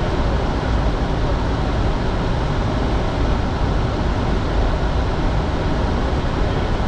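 Steady cockpit noise of a business jet in its climb after takeoff: an even rush of airflow and engine noise, heaviest in the bass, with no changes.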